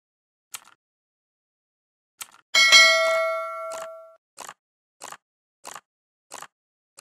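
Button-press sound effects: a faint click, then a bell-like ding that rings and fades over about a second and a half, followed by a run of short mouse clicks about every 0.6 s.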